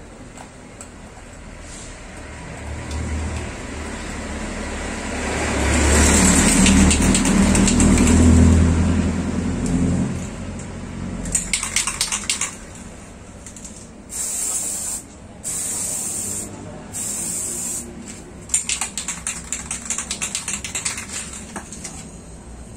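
An aerosol spray paint can rattles as it is shaken, gives three short, steady sprays of about a second each, then rattles again. Earlier, a low rumbling noise, the loudest sound here, swells over several seconds and fades.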